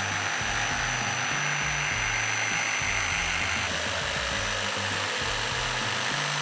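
Corded jigsaw cutting a curve through a pine board: a steady motor whine with the blade's rasp through the wood.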